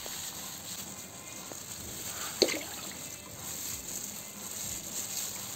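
Liquid dish-wash mixture of caustic solution and slurry sloshing in a bucket as it is stirred. One short sharp knock sounds about two and a half seconds in.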